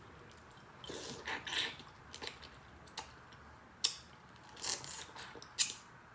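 Dungeness crab shell being cracked and picked apart: scattered sharp snaps and clicks with short crunchy, crackling stretches between them.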